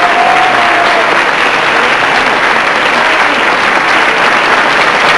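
Audience applause, dense and steady throughout, with a voice briefly held over it at the start.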